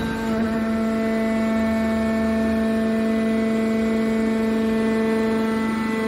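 Hydraulic power unit of a scrap aluminum baler running: its motor-driven pump gives a steady, even hum with a clear pitch.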